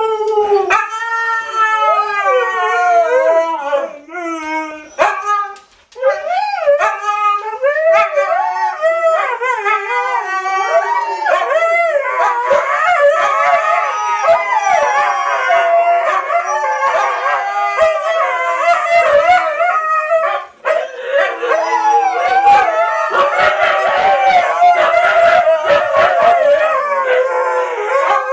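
Several huskies howling and roo-rooing loudly together, their sliding, wavering calls overlapping into a chorus. It is excited vocalising at the prospect of a walk.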